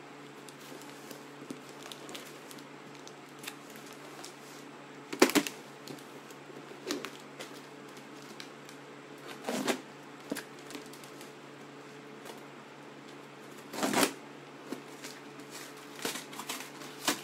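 Cardboard shipping box being handled and opened by hand: scattered rustles, scrapes and knocks of cardboard and packing tape, the loudest about five seconds in and again around fourteen seconds. Scissors click at the tape near the end. A faint steady hum runs underneath.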